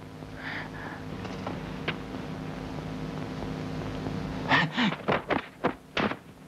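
Kung fu film fight sound effects over a steady tape hum: a few light hits early on, then, from about four and a half seconds in, a quick run of about five sharp whacks and swishes.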